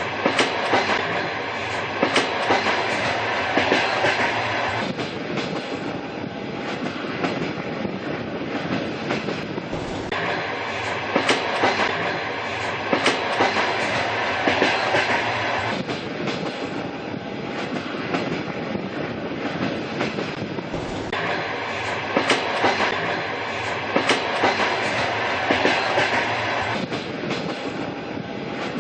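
Train running along the track: a steady rumble with wheels clicking over rail joints in irregular clusters.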